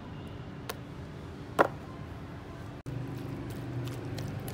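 A steady low motor hum, such as nearby street traffic or an idling engine, with a light click and then a sharp, loud knock about a second and a half in. The sound cuts out for an instant near three seconds, after which the hum is a little louder, with faint small clicks.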